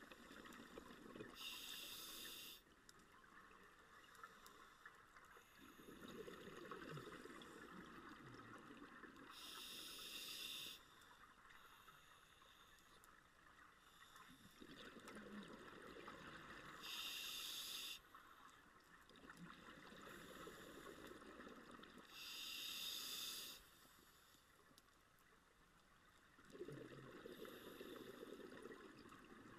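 Scuba diver breathing through a regulator underwater: slow inhalations through the demand valve, then four exhalations, each a rush of bubbles about a second long, coming every five to seven seconds.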